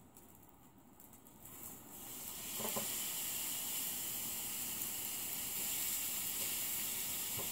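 Raw steak sizzling in a hot frying pan on a propane camp stove; the sizzle rises in about two seconds in as the meat goes into the pan, then holds steady.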